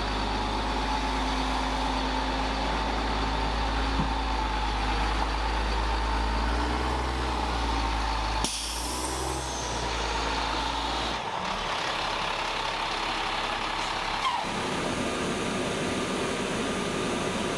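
Diesel engine of a HIMARS rocket-launcher truck running as the truck moves slowly, with a sudden air-brake hiss about eight seconds in. Near the end the sound gives way to a steadier hum.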